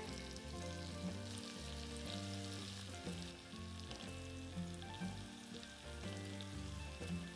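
Prawns sizzling gently in a pan of hot oil, onion and garlic, a steady light hiss, with background music playing.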